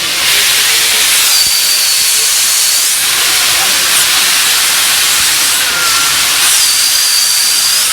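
Steam escaping with a loud, steady hiss from the LNER A1 class 4-6-2 steam locomotive Tornado as it stands. A thin, high whistling tone rises out of the rush twice, each time for about a second and a half.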